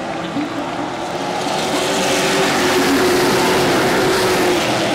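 A pack of Pro Truck race trucks running past the grandstand, their engines swelling to a peak mid-way and easing off near the end as they go by.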